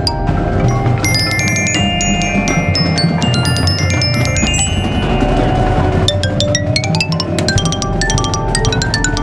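Glockenspiel and xylophone played with mallets over the rest of a percussion ensemble. For the first few seconds glockenspiel notes ring on over each other, and from about six seconds in, fast, short xylophone strikes take over.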